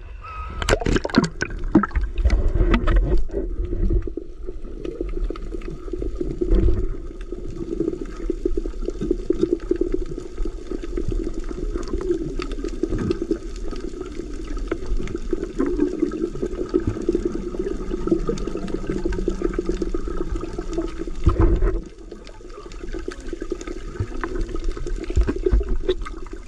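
Splashing as the diver goes under, then a steady muffled rush of water with bubbling and crackling, heard from underwater during a freedive.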